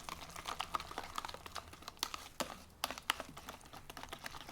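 Horseradish sauce of sour cream and mayonnaise being stirred in a bowl, the utensil clicking and tapping against the bowl in quick, irregular strokes.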